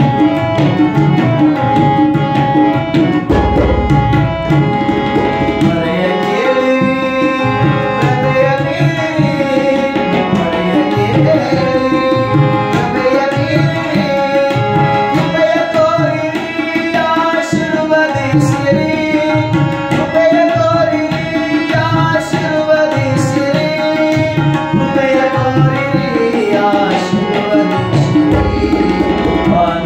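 Tabla and harmonium playing together: quick, steady tabla strokes on the two drums over the harmonium's sustained reed chords and a stepping melody line.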